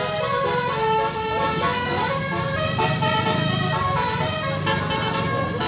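Bus 'telolet basuri' multi-tone musical horn playing a quick melody of held notes that step up and down in pitch, over the low sound of the bus engine running.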